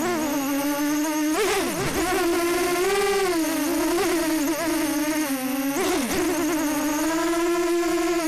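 Storm SD250 FPV quadcopter's motors and propellers whining in flight, the pitch holding steady and then dipping and swooping briefly with throttle changes about 1.5 s in, around 3 s and about 6 s in.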